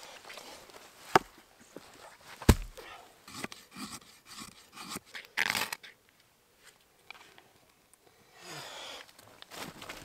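Footsteps on a forest floor of leaf litter and twigs while sticks are handled, with two sharp knocks of wood, the louder about two and a half seconds in, and a short rustle near the middle.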